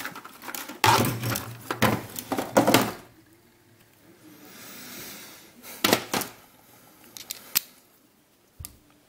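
Hand rummaging through a case of screwdrivers and bits: a run of rattling, clattering knocks for about two seconds, then another short clatter and a few single clicks, with a low thump near the end.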